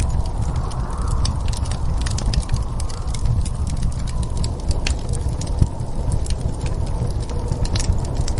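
Wood fire crackling with irregular sharp pops, over the steady low rumble of a snowstorm wind, which swells in a gust about a second in.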